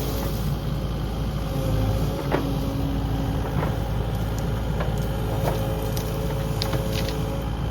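Kubota KX080 excavator's diesel engine running steadily as it grabs and pulls out brush, with a few sharp knocks.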